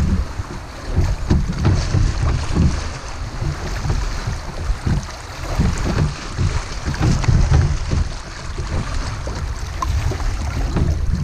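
Rushing river water and splashing around a kayak running a fast rapid, with heavy gusty rumble of wind buffeting on the microphone.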